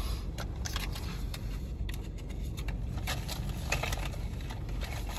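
Plastic lip-gloss tube and its packaging being handled: scattered small clicks and rustles over a steady low rumble.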